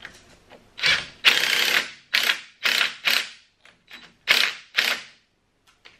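Cordless impact driver hammering in a string of short bursts, about eight in all, the longest about a second in. It is tightening a nylock nut on a snowmobile track stud to pull the backer plate down flush with the track.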